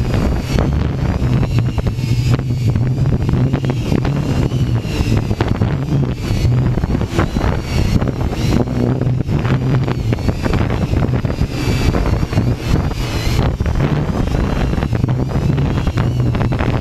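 Hexacopter's electric motors and propellers whining, the pitch wavering up and down as they work against high wind, under heavy gusty wind buffeting on the microphone.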